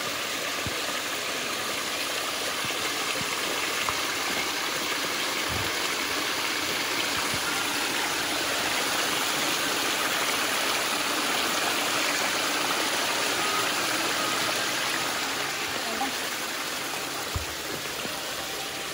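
Stream water rushing steadily, an even hiss of flowing water with a few faint low knocks.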